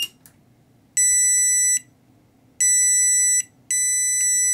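Eggtimer Quasar flight computer's onboard buzzer sounding three steady, high beeps, each just under a second long, on first power-up: a sign that the board is alive and working. A brief click comes right at the start.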